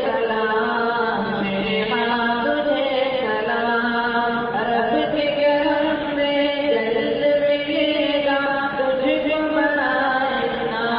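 An Urdu nazm sung in a chant-like style, with long held notes that slide from pitch to pitch.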